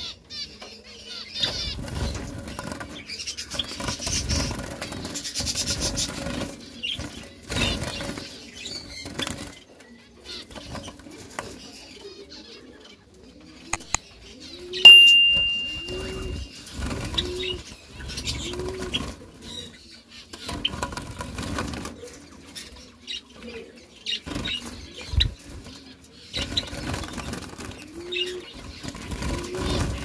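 A flock of white Java sparrows fluttering and flapping their wings in an aviary cage, in irregular bursts. Low cooing calls come about once a second in the middle and again near the end. A single loud electronic ping sounds about halfway through.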